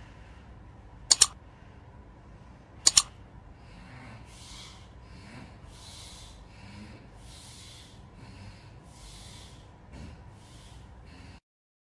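Two sharp double clicks, then a sleeping person's loud, noisy breathing, a hissy breath about once a second, the strange night-time breathing in his sleep that the friends argue over as snoring.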